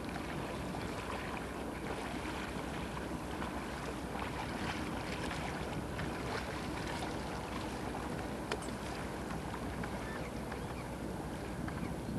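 Steady wind noise on the microphone over a low drone of motorboats on the lake, with one sharp click a little past two-thirds of the way through.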